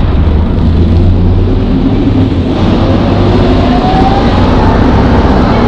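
El Detalle OA106 minibus engine running with a deep, steady drone; from about halfway in a whine joins it and rises steadily in pitch as the engine accelerates.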